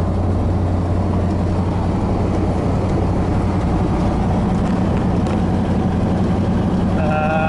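1986 Chevy K-10 pickup's small-block V8 running at a steady low drone while cruising in overdrive, mixed with road noise, heard from inside the cab.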